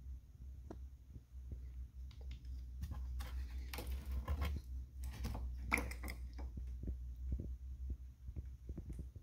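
Handling noise as a plastic engine-bay cover is pushed aside and the radiator cap is twisted off on a cold engine: scraping, rattling and clicks bunched in the middle, one sharper click near the end of that run, over a steady low hum.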